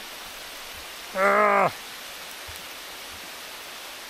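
Steady hiss of rain falling on woodland. About a second in comes one short voiced sound, half a second long, that drops in pitch at its end.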